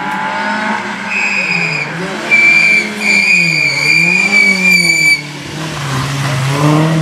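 Rally car on a wet tarmac stage, its engine revving up and down with throttle and gear changes while its tyres squeal in a high, steady screech from about a second in to past the middle. Near the end the revs drop low, then climb again as the car accelerates away.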